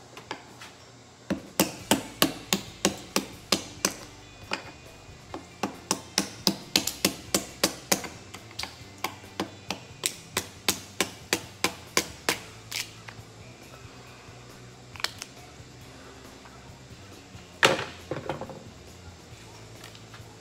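Mallet striking a chisel in a fast run of blows, about two to three a second for some ten seconds, chipping brittle old filler and fairing off a ferrocement boat hull. A few single strikes follow, the loudest near the end.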